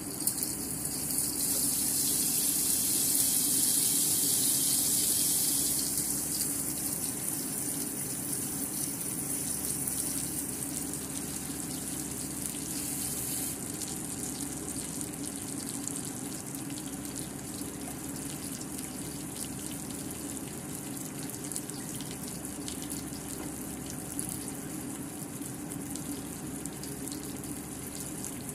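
Australian Wagyu New York strip steak searing in olive oil in a frying pan among unpeeled garlic cloves, giving a steady sizzle. It is louder and brighter over the first several seconds, then settles to an even hiss.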